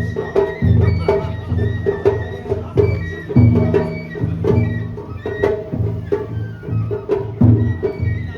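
Japanese festival ohayashi music: drums beat a steady rhythm under a high flute melody, with sharp clicks marking the beat.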